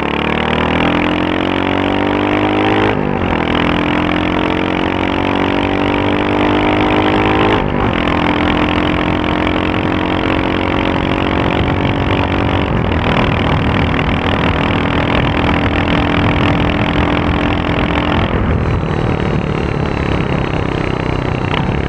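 Royal Enfield Hunter 350's single-cylinder engine and exhaust under way, pulling up through the gears. The pitch climbs, then drops at upshifts about three and eight seconds in. After another shift near thirteen seconds the engine holds steady, and it eases to a lower pitch a few seconds before the end.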